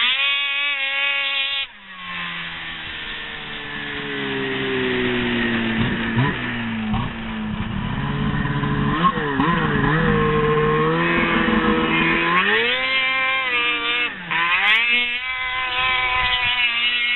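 Ski-Doo racing snowmobile's two-stroke engine revving hard, its pitch climbing and falling as the throttle is opened and shut, with a sudden drop in revs about two seconds in and another short dip near the end.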